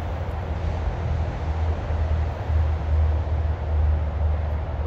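Steady low rumble of outdoor background noise, swelling for a couple of seconds in the middle.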